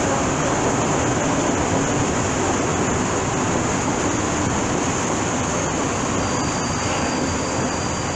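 Freight train of ČD Cargo hopper wagons rolling past at speed, a steady rumble of wheels on rail that eases slightly as the last wagons go by. A thin high whine joins about six seconds in.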